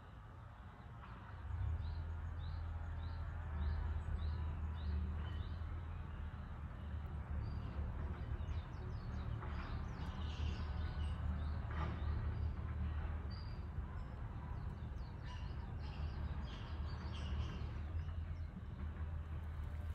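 Small birds chirping: a quick run of short, high chirps, about three a second, over the first few seconds, then scattered calls. Underneath is a steady low rumble that grows louder about a second and a half in.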